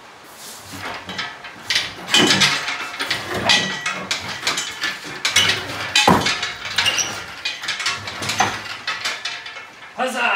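Jeep 4.0L straight-six and transmission being hoisted out of the chassis on a hand-pumped hydraulic engine hoist: irregular metal clanks, knocks and scrapes as the drivetrain shifts and swings, with one loud bang about six seconds in.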